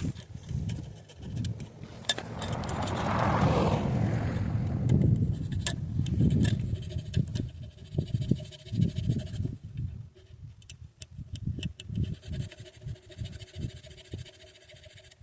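Hand work on pistol trigger parts: scattered clicks and knocks, with a stretch of scraping a couple of seconds in.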